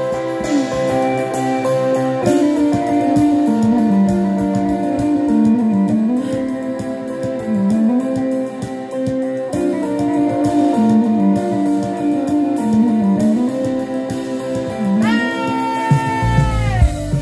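Live band playing an instrumental passage, with guitar notes held over a moving lower line and drums. Near the end one long held guitar note bends down in pitch, and heavier low-pitched playing comes in right after.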